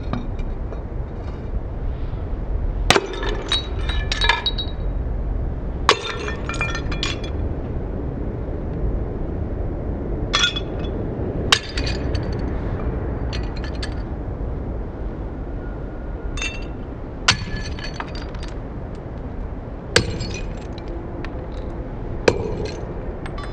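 Brittle objects shattering: about eight sharp breaks spread out, several followed by a second or so of shards clinking and scattering, over a steady low rumble.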